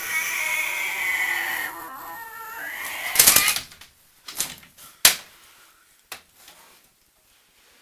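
A loud, drawn-out, wavering screech in a high voice that fades out about two seconds in. A loud rushing burst follows about three seconds in, then a single sharp bang near five seconds as the louvered bifold closet door is shut.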